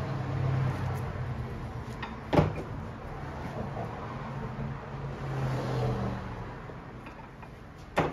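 Leather boot welt being hand-stitched, thread drawn through the welt, with two sharp clicks, one about two seconds in and one near the end, over a steady low hum.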